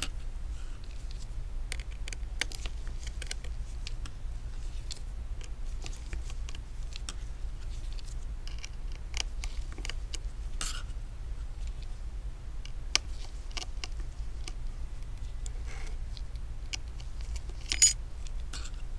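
Small metallic clicks and ticks from a precision Phillips screwdriver backing out the tiny screws of an iPhone 6s Plus's internal bracket, scattered and irregular, with a sharper click about two-thirds through and a louder one near the end. A steady low hum runs underneath.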